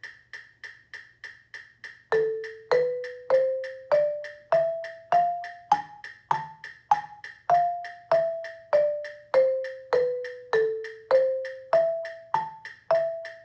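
Yarn mallets striking the wooden bars of a student-model xylophone over a steady metronome click at 100 beats per minute. The click counts in alone for about four beats, then one note per beat plays the A harmonic minor scale up an octave and back down, and then starts an A minor arpeggio.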